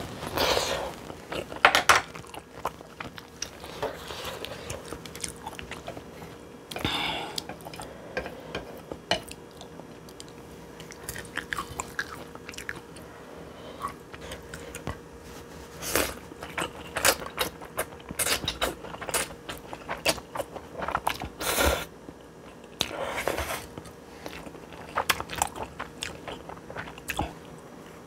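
A person chewing spicy stir-fried instant noodles: mouth sounds of eating, with scattered sharp clicks and a few longer noisy smears.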